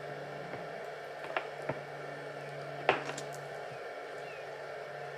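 Light handling clicks and taps from a heavy battery cable and its crimped ring terminal being worked by hand, over a steady low hum. There are two small clicks about a second and a half in and a sharper one about three seconds in.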